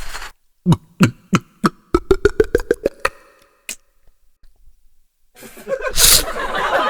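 Beatboxed mouth sound effects: four spaced knocks, then a quick run of about ten clicks that rise in pitch, one more click, and after a pause a loud hissing burst.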